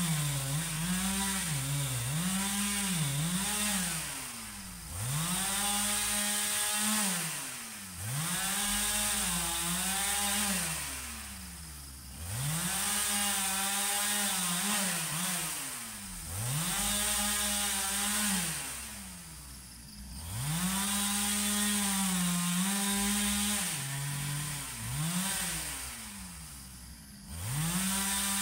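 Husqvarna 395 two-stroke chainsaw cutting rubberwood logs: the engine is run up to full throttle again and again, roughly every four seconds, its pitch dipping as the chain bites into the wood, then dropping back between cuts.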